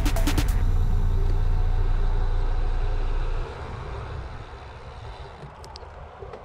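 Wind rumbling on a helmet- or bike-mounted action camera's microphone as a bicycle rides along a road. It drops suddenly to a much quieter hiss about three and a half seconds in, with a few faint ticks near the end.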